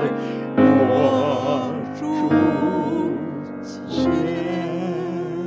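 A Chinese hymn sung with piano accompaniment. The voice holds the long closing notes of the verse with a wide vibrato, and a new held note starts about four seconds in.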